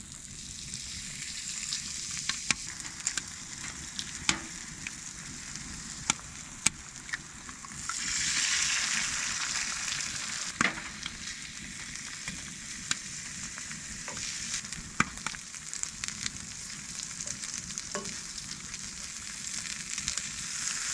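Sausage patties and eggs sizzling in a frying pan on a small wood stove, the sizzle swelling sharply about eight seconds in as the eggs go into the pan. Scattered sharp taps and clicks sound over the frying.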